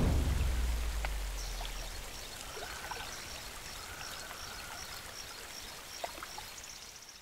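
Rushing stream water, with a deep boom at the start that fades away over about two seconds. High, evenly repeated chirps sound over the water through most of it.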